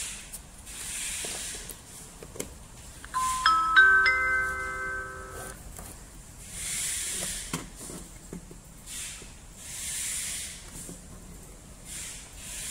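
Wireless calling-system pager receiver sounding a short electronic chime: a few notes enter one after another, rising, ring together and stop after about two and a half seconds. Soft hissing swells come every few seconds around it.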